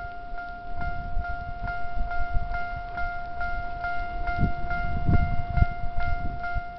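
Japanese railway level-crossing warning bell ringing in an even, repeating rhythm of about two and a half strokes a second. A low rumble sits underneath and swells twice past the middle.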